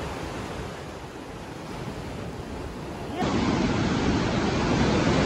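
Sea surf washing onto a sand beach, a steady rushing wash. About three seconds in it jumps abruptly louder, with closer waves breaking.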